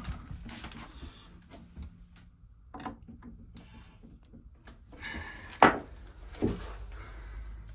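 Scattered knocks and rubbing from hands working at the pipework as the quarter-turn isolation valve on the tank's supply pipe is opened to let the water back in. One sharp knock about five and a half seconds in is the loudest, with a lighter one about a second later.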